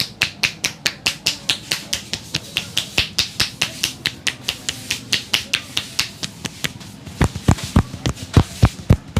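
Rapid, rhythmic percussive massage strokes of a barber's hands striking a person's head or body, about six sharp slaps a second. About seven seconds in they turn into louder, deeper thumps.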